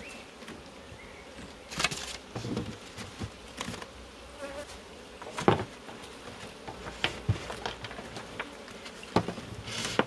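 Honeybees buzzing steadily around the opened hives, with a scatter of sharp knocks and scrapes as the crown board and lid are fitted onto a nuc box and pressed down; the loudest knock comes about five and a half seconds in.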